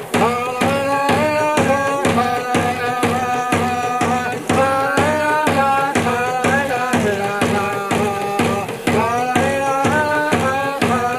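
Background music with a steady drum beat, about four strokes a second, under a melody.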